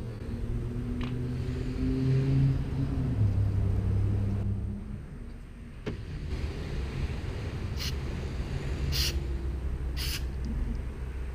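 Brushed electric motor of an RC truck running, a low hum whose pitch steps down about three seconds in, then falls off; a few short sharp clicks follow over a lower rumble.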